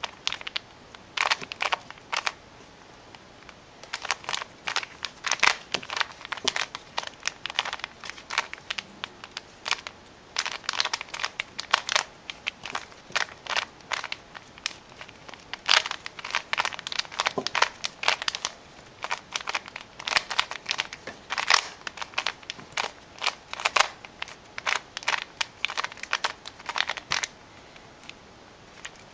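Plastic Rubik's Cube being turned by hand: fast flurries of clicking and clacking as the layers snap round, with brief pauses between sequences of moves.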